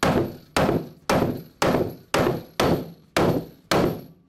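Hammer blows on the metal rivets and plates of Flexco BR solid-plate conveyor-belt fasteners, eight strikes at about two a second, each with a short metallic ring. This is the final set, seating the rivets fully against the fastener plates.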